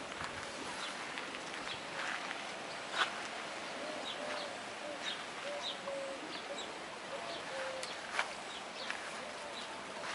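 Outdoor farmyard ambience with birds calling: a run of short, low, even notes repeating in the middle, many brief high chirps throughout, and two sharp clicks, one about three seconds in and one near the eight-second mark.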